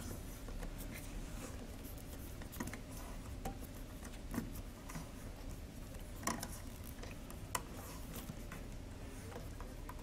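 Black vinyl electrical tape being pulled off its roll and wrapped around a cable connector: faint, scattered clicks and crackles of tape and hand handling, a few sharper ticks among them, over a low steady hum.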